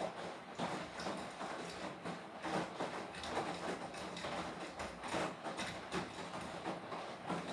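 Beko WTK104121W washing machine drum tumbling a wet load during the wash, with the laundry and water sloshing in uneven surges about once or twice a second.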